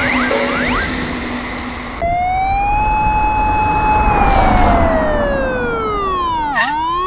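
A repeating electronic ringing pattern with short rising chirps, about three a second, like an animated crossing bell, cuts off about two seconds in. A loud horn-like electronic tone then starts suddenly, holds, glides slowly down in pitch with a rushing noise swelling beneath it, and turns sharply to glide back up near the end, like an exaggerated passing-train pitch sweep.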